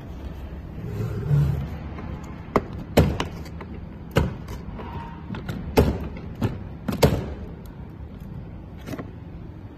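Irregular sharp plastic knocks and clacks from a hollow plastic ride-on toy car being handled and moved on a hard floor, most of them in the middle few seconds.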